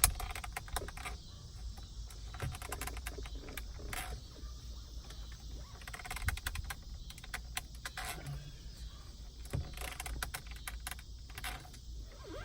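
Scattered small plastic clicks and short scrapes as a stuck climate-control knob on a 2016 Toyota 4Runner dash is gripped and tugged, refusing to come off, over a faint steady low hum.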